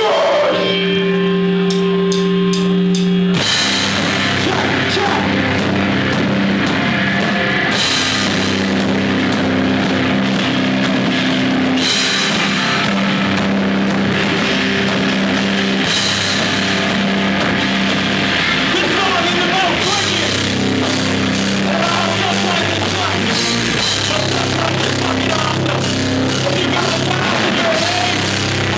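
Live heavy metal/hardcore band playing loud: electric guitars, bass and drum kit with vocals. It opens on a held note over drum hits, and the full band comes in about three seconds in.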